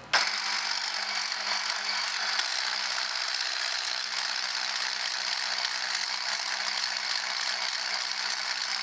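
Electric stick blender with a whisk attachment switching on just after the start and then running at a steady speed. It is whipping butter, confectioner's sugar and milk into a cream filling in a glass jug, with a constant motor hum and whine.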